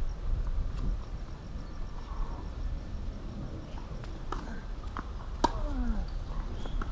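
Tennis rally: a few sharp pops of the ball off rackets and the hard court, the loudest a little past halfway as the near player strikes a forehand, over a low steady rumble.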